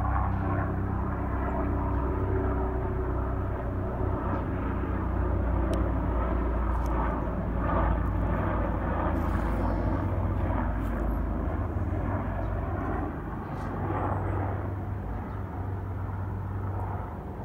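Bell 407 helicopter passing overhead: a steady, loud rotor and turbine hum with a strong low throb, slowly fading near the end.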